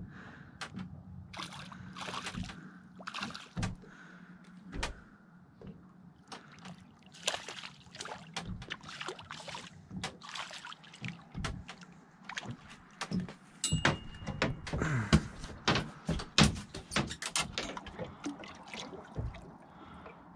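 Water splashing and sloshing beside a small boat as a hooked perch is brought to the side and held in the water, with many short clicks and knocks of the tackle and handling. The splashing is busiest in the second half.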